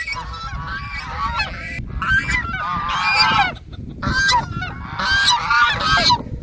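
A flock of domestic geese honking, many calls overlapping in a continuous clamour, with a brief lull about three and a half seconds in.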